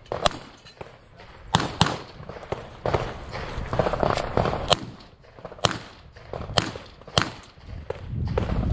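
Handgun shots from a competitor working through a practical pistol stage. The shots come singly and in quick pairs, with pauses while the shooter moves between them.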